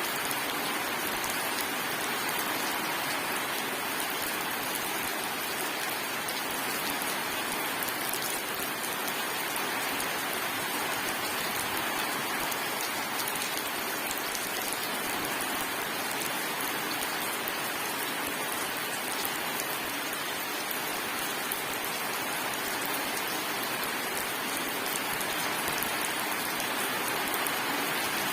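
Steady rain falling, an even hiss of many drops that holds a constant level throughout.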